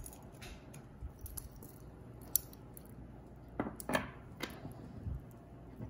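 Handling noise from a gold-tone metal necklace being picked up and moved on a cloth: scattered soft clinks and rustles, a sharp tick a little over two seconds in, and a cluster of handling sounds around four seconds.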